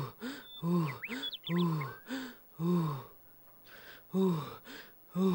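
A cartoon tortoise's voice giving short, breathy grunts of effort that fall in pitch, about two a second with a brief pause past the middle, as he strains to run. Faint bird chirps come in about a second in.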